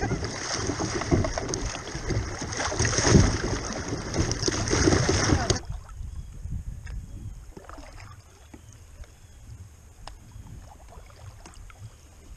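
Rushing, splashing water of a shallow river riffle around a kayak's hull. It cuts off abruptly a little under halfway through, giving way to much quieter calm water with a few faint knocks.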